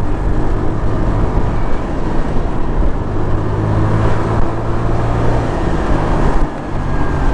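Motorcycle engine running steadily while riding, under a dense rush of wind and road noise. The engine hum strengthens in the middle and the sound dips briefly about six and a half seconds in.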